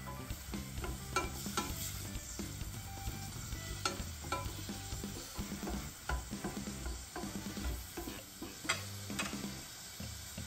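Food sizzling in oil in a pan while a utensil stirs it, with scattered sharp clinks of the utensil against the pan.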